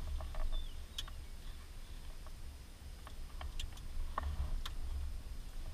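Scattered sharp clicks and light knocks from cockpit switches and controls being handled during pre-start checks, over a low steady rumble.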